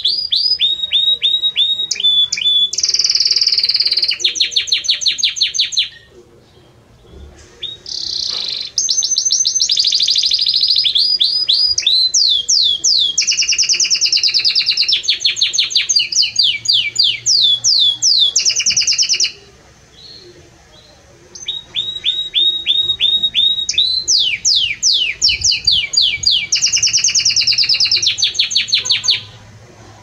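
Belgian canary singing loudly: fast trills and long runs of rapidly repeated sweeping notes, in three long bursts of song separated by two short pauses.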